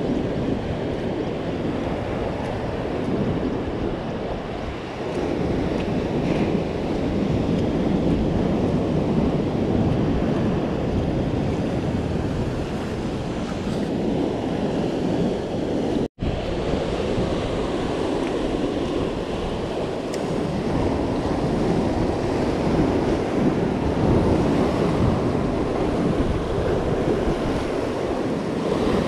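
Ocean surf washing over a rocky shore, with wind rumbling on the microphone. The sound cuts out for an instant about halfway through.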